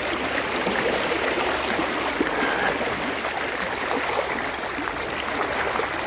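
River water rushing and splashing close to the microphone, a steady churning noise crackling with small splashes as the current breaks around the bathers' bodies.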